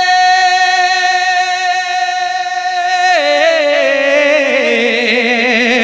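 A man singing a line of a sehra, an Urdu wedding poem, without accompaniment: he holds one long high note for about three seconds, then lets it fall in a wavering, ornamented run.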